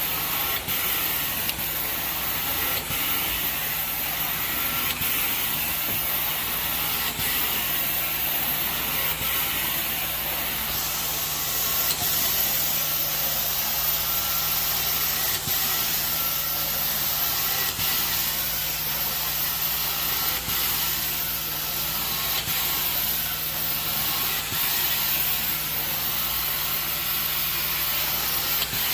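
Four-jet titanium carpet-cleaning wand spraying and extracting with a steady loud hiss over a steady low hum. The hiss changes tone about eleven seconds in, and there are faint clicks about every two seconds.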